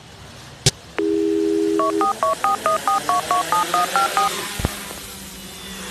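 Telephone sound effect: a click, a steady dial tone for about a second, then a quick run of about a dozen touch-tone keypad beeps dialing a number.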